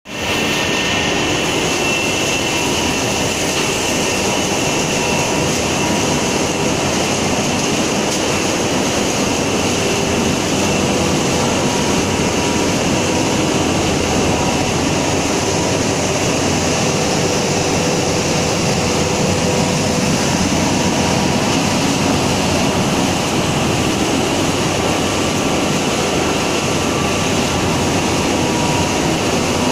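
Organic fertilizer pellet production line running: electric-motor-driven pellet mills and a screw conveyor making a loud, steady machine drone with a few faint steady whines mixed in.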